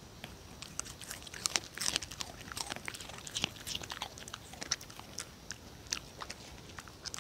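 Dog chewing Korean melon (chamoe) peel: a quick run of crunches, thickest in the first few seconds.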